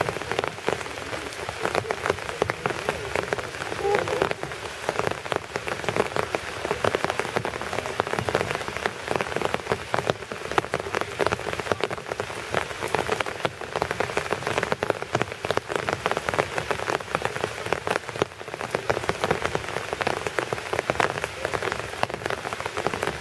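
Steady rain, with dense individual drops striking a hard surface close to the microphone.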